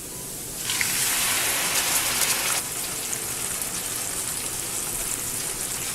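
Puréed tomato paste poured into hot oil and fried garlic in a pan, sizzling. The sizzle jumps up suddenly less than a second in, then eases after a couple of seconds to a steadier, softer sizzle.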